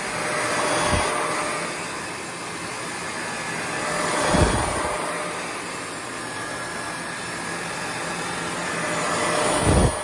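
Shark Rotator Pro (ZU782) upright vacuum cleaner running with its floor nozzle on carpet, pushed back and forth. The noise swells three times, once with each stroke.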